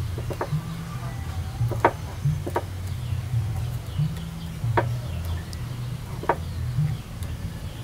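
Chickens clucking now and then, a short call every second or so, with faint bird chirps and a low background drone underneath.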